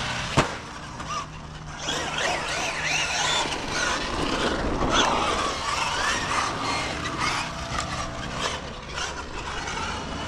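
Traxxas Maxx Slash RC short-course truck driving on 6S, its brushless motor whining up and down in pitch as it speeds up and slows, over tyre noise on dirt. A single sharp thump just under half a second in.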